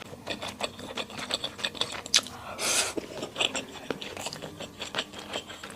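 Close-miked chewing of Sichuan skewer hotpot food: a run of small wet clicks and smacks from the mouth, with one brief louder wet burst about two and a half seconds in.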